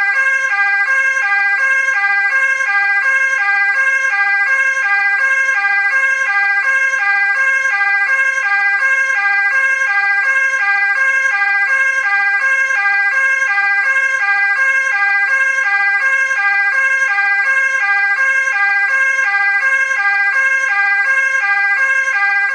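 Dutch ambulance two-tone siren, sped up, switching back and forth between a high and a low pitch in quick regular alternation over a steady high tone.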